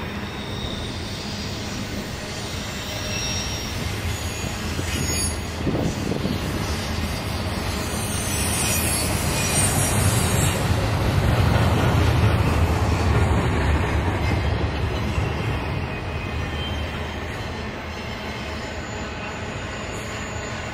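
Intermodal freight train cars rolling past, a steady rumble and clatter of steel wheels on rail that swells in the middle, with a high wheel squeal about eight to ten seconds in.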